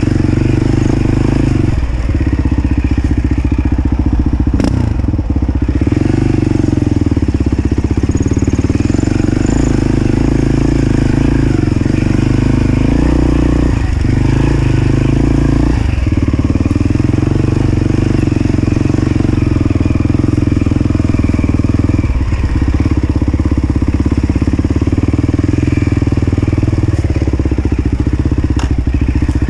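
Enduro dirt bike engine running steadily while ridden along a trail, with a few short knocks through it.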